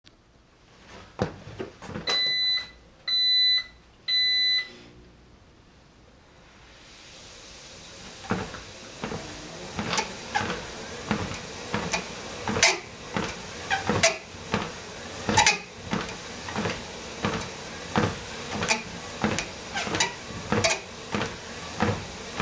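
Livestrong LS13T treadmill starting up: button clicks and three short console beeps, then the motor and belt come up to speed with a steady rising whir. Over it come sharp regular knocks, about three every two seconds.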